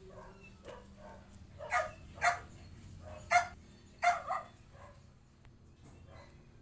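A dog barking: about five short, sharp barks in quick pairs and singles, the loudest near the middle.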